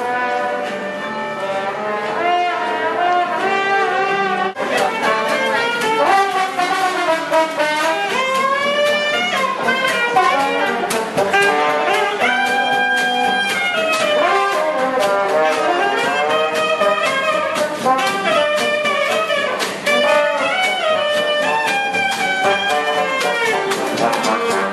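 Brass band playing jazz, with trumpet and trombone lines carrying the tune. A beat of sharp strikes comes in about four and a half seconds in.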